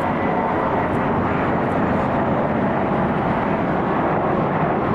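Jet airliner passing, its engines giving a loud, steady rushing noise with no breaks.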